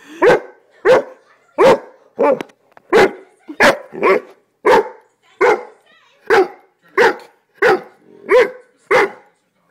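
English mastiff puppy barking close up: a steady string of about fourteen loud barks, roughly one every two-thirds of a second.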